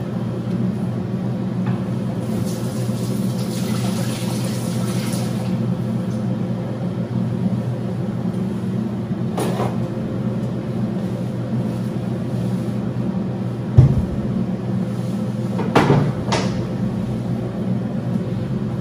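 A steady low mechanical hum, with a soft hiss for a few seconds early on and a few knocks and clatters in the second half, the loudest a dull thump about 14 seconds in.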